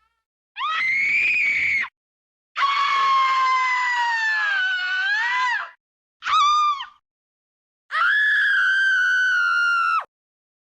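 Four separate screaming sound effects, each cut off into dead silence: a short scream, a long one of about three seconds that slowly falls and then wavers in pitch, a very short one, and a steady two-second one near the end.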